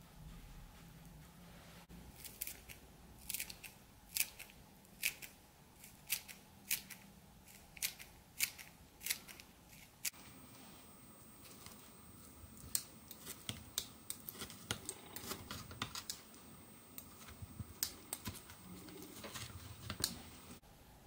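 Kitchen scissors snipping green onion, a crisp snip roughly every half second in two runs with a short pause between.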